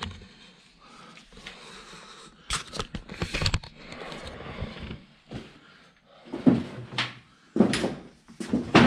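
Scuffing and handling noise with a cluster of knocks, then a run of heavy thuds like footsteps as someone climbs a stairway.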